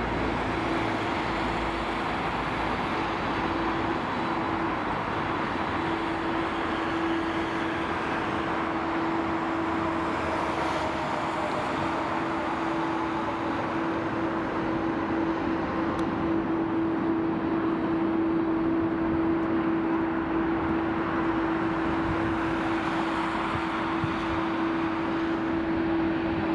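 Boeing 747-400's four jet engines running as the airliner rolls on the runway for takeoff: a steady rushing noise with a constant hum, growing slightly louder a little past the middle.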